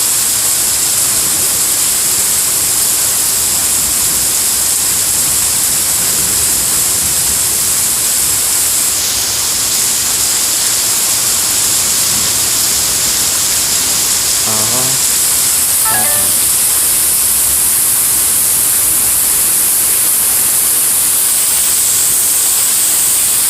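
Heavy thunderstorm rain falling in a steady, unbroken hiss.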